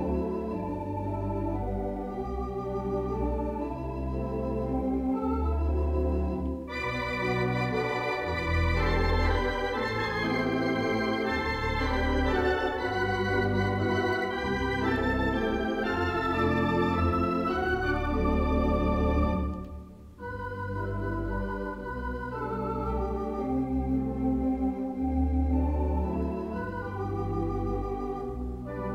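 Rodgers MS351 electronic organ playing sustained chords over long pedal bass notes, using theatre organ voices. About seven seconds in, a brighter, fuller registration comes in; after a brief break about twenty seconds in, it goes back to a softer sound.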